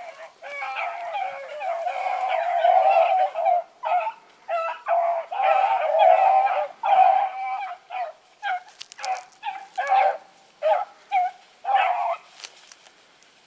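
A pack of young rabbit dogs baying as they run a rabbit's track. Their voices run together for the first few seconds, then break into separate barks that thin out near the end.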